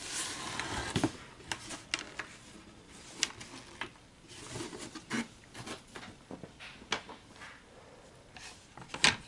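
Cardboard box being handled and turned over: a rubbing, sliding swish of cardboard in the first second, then scattered light knocks and scrapes.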